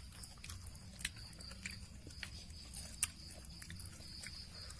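Someone chewing crunchy fried grasshoppers and crickets: irregular sharp crunches, the loudest about three seconds in.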